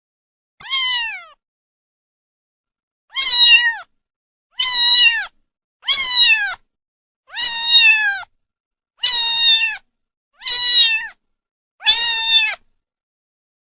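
Kitten meowing repeatedly: eight short, high-pitched meows, each falling in pitch at the end. One comes near the start, then seven follow after a two-second pause, about one every one and a half seconds.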